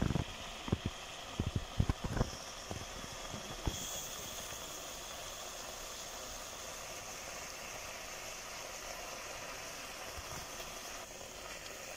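Pineapple chunks simmering in sugar and their own juice in a pot, a steady bubbling hiss. A few soft knocks come in the first few seconds.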